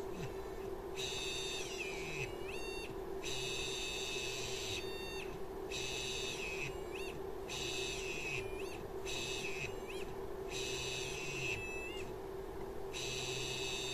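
A stepper motor on a Trinamic StealthChop driver whines in about a dozen short on-off bursts of high stacked tones, some gliding up or down in pitch, over a steady hum. The motor keeps failing to start and stalling at high speed.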